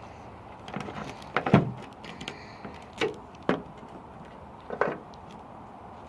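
Handling noise from a phone with fidget spinners duct-taped to it: a handful of short knocks and scrapes, the loudest about a second and a half in.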